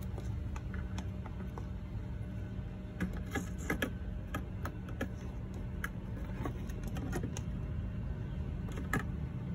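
Scattered light clicks and taps as the router's circuit board and the multimeter's test leads are handled, over a steady low background rumble.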